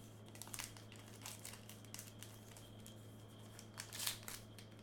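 Faint crinkling and rustling of trading-card packaging and plastic as baseball cards are handled, with a few louder crinkles about four seconds in.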